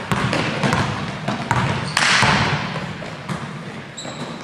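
Basketball dribbled on an indoor gym floor, a run of sharp bounces, with players' footsteps. A louder noisy burst comes about two seconds in, and a brief high sneaker squeak near the end.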